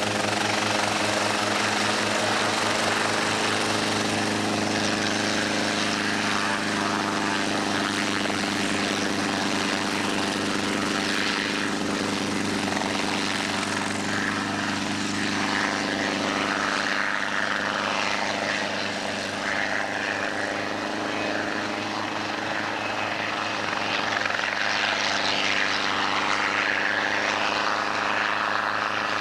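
Hughes 300 light piston helicopter running close by as it lifts off and hovers low. Its engine and rotor make a steady drone with a fast pulsing beat.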